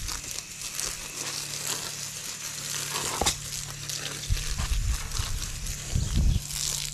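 Water from a garden hose spraying steadily onto a horse's legs and splashing on brick paving, a continuous hiss, with a couple of dull low thumps in the second half.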